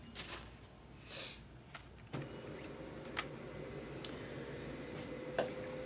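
A printer starts up about two seconds in and runs with a steady hum, with a few light clicks over it.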